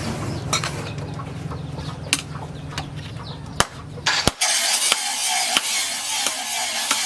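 Low steady motor hum with scattered clicks and knocks; about four seconds in it cuts off abruptly and gives way to an even hissing noise full of small clicks.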